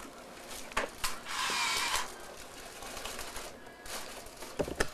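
Corsage and boutonniere boxes being handled and opened: light plastic clicks and a paper rustle. A louder rustle starts about a second in and lasts under a second, and a few sharp clicks come near the end.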